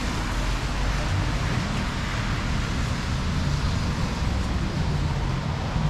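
Steady rain falling in a city street, with a low rumble of road traffic underneath.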